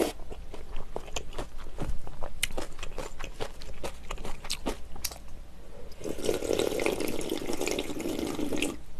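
Broth slurped from a spoon at the start, then small wet mouth clicks and chewing sounds. About six seconds in comes a continuous slurp of about three seconds as spicy jjamppong ramyeon broth is drunk straight from the bowl.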